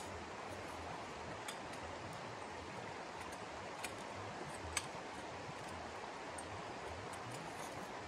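Steady rush of flowing water, with four sharp clicks of a tent pole being handled and taken apart. The loudest clicks come right at the start and about five seconds in.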